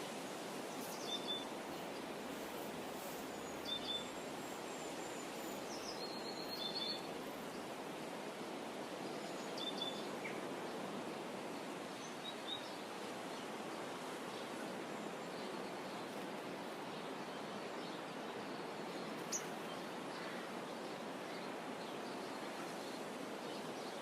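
Outdoor ambience: a steady even background hiss, with a bird giving short high chirps about every three seconds through the first half, and a few other faint bird calls.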